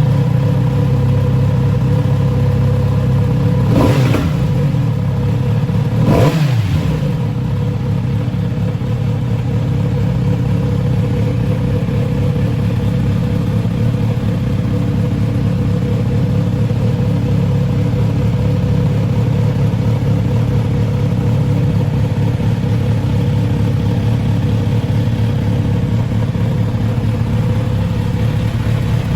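Kawasaki Z900RS inline-four engine running just after being started, given two short throttle blips about four and six seconds in, the second dropping back, then settling into a steady idle.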